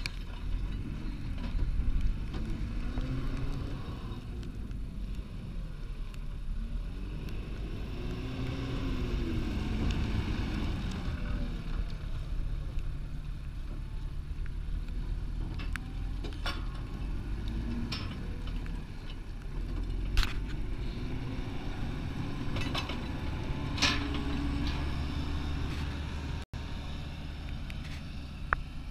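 Tractor engine running steadily, its note rising and falling every few seconds as the load or revs change, with a few sharp knocks and rattles.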